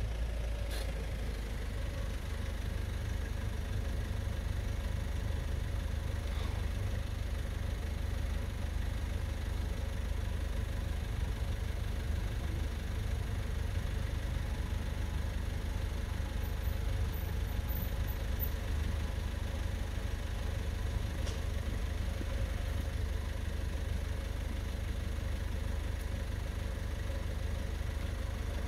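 An engine idling steadily with a low rumble.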